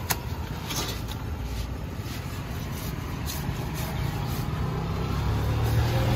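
A road vehicle's engine rumbling, growing louder over the last couple of seconds as it draws near, with a few short clicks.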